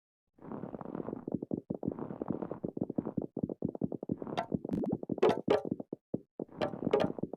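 Many glass marbles rolling and clattering down a marble run, a dense rattle of quick irregular clicks starting about half a second in. From about four seconds in, sharper ringing clinks of marbles striking each other stand out.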